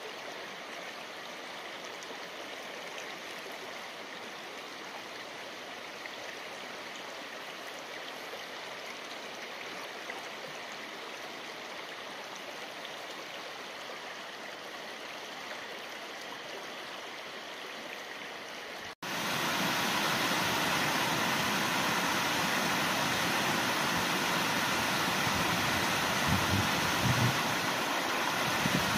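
Shallow creek flowing steadily over stones. About 19 s in it cuts to a louder, brighter rush of a rocky mountain stream cascading between boulders, with a few low rumbles near the end.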